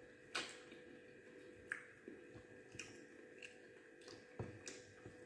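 Faint chewing and wet mouth sounds of someone eating cabbage and rice by hand, with a few soft clicks and smacks scattered through.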